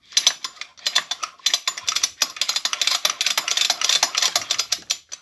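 Homelite hedge trimmer's small two-stroke engine being turned over with its crankcase open, the crankshaft and connecting rod spinning; a rapid, uneven mechanical clicking and ratcheting, in a few short spurts and then almost continuous from about a second and a half in.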